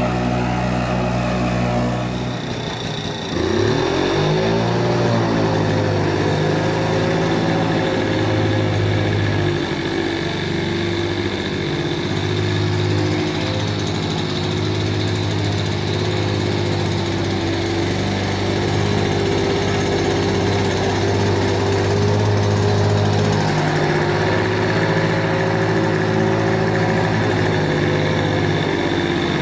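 Victa two-stroke lawnmower engine, running on a clone Mikuni carburetor, holding a steady speed. About three seconds in the sound dips briefly and the engine note climbs back before settling.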